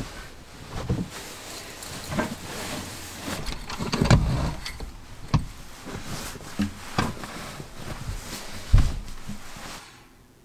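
Rustling of clothing and bedding with a series of sharp knocks and thumps as a person moves about in the cramped interior and handles a wooden table top; the two heaviest thumps come about four seconds in and near the end, and the handling noise stops shortly before the end.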